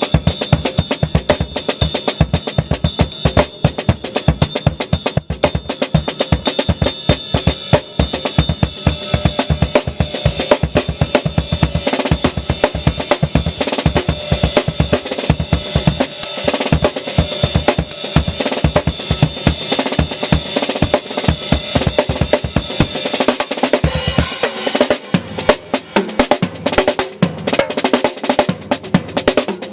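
Acoustic drum kit played solo: rapid bass drum and snare strokes under ringing cymbals. Near the end the cymbals drop out, leaving the drums alone.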